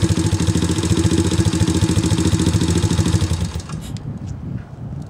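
Irbis TTR 125 motorcycle's 125 cc single-cylinder four-stroke engine idling steadily, then stopping abruptly about three and a half seconds in.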